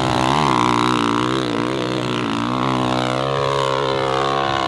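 KTM EXC dirt bike engine revving hard on a steep hill climb, its pitch wavering up and down as the throttle is worked.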